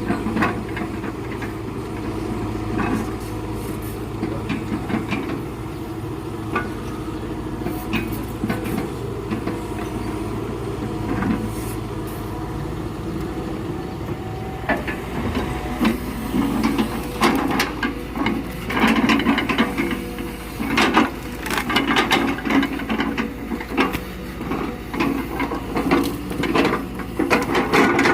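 Excavator's diesel engine running steadily while rubberwood logs knock and clatter as they are handled. The knocking grows much busier and louder about halfway through.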